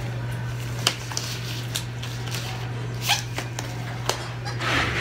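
Steady low hum of dental treatment-room equipment, with scattered small clicks and taps and a breathy rush near the end.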